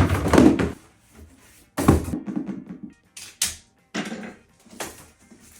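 Several short bursts of rustling and knocking, as from a hair dryer's box and packaging being handled and opened, over background music.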